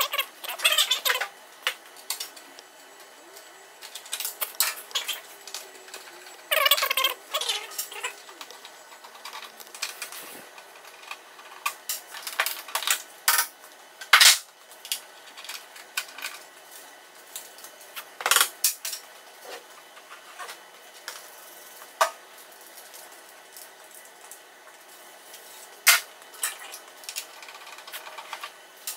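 Hand work on a motorcycle: scattered clicks, clinks and rattles of small parts and tools being handled, with a couple of sharper knocks midway. There are short screechy rasps about a second in and again around seven seconds.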